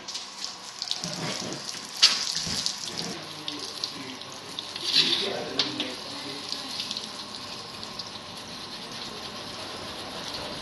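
Water running steadily from a tap and splashing, with a sharp knock about two seconds in.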